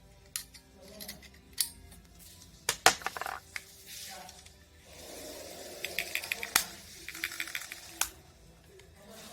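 Digivice sounding a quick string of short electronic beeps a little past halfway, among several sharp clicks.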